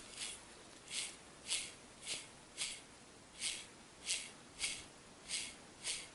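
About ten short scraping strokes, roughly two a second, from hand work on the van's heater fan motor during its reassembly.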